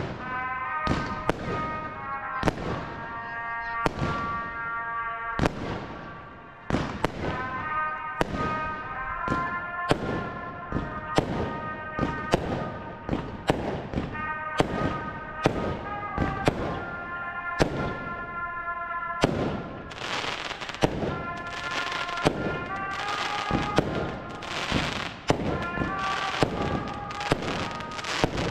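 A fireworks display: shells launching and bursting one or two times a second, with music from the village public-address loudspeakers playing under the bangs. From about two-thirds of the way through, the bursts come with a dense crackle of glittering stars.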